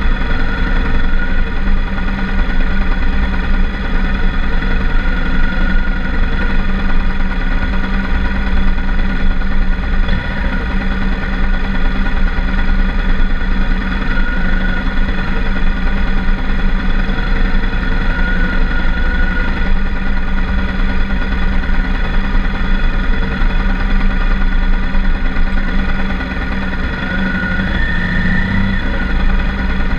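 BMW R1200GS Adventure's boxer-twin engine running steadily at low speed in slow traffic, easing off slightly near the end.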